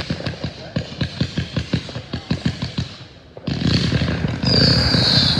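Consumer fireworks cake firing. A rapid string of shots, about six a second, thins out about three seconds in. Then a sudden volley of comets launches with a loud rushing hiss, and a falling whistle comes in near the end.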